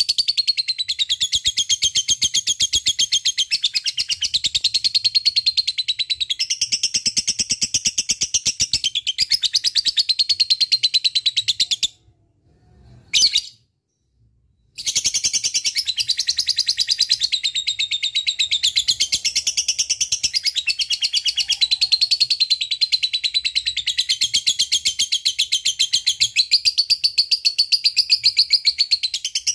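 Lovebird singing its long 'ngekek' chatter: a rapid, unbroken stream of high-pitched trilling chirps. About twelve seconds in it breaks off for about three seconds, with one short chirp in the gap, then starts again.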